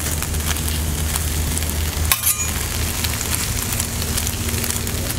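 Deli turkey sizzling on a flat-top griddle while a metal spatula scrapes and pushes it around, with a sharper scrape about two seconds in. Underneath runs a steady low engine drone from a neighbour's lawn mower.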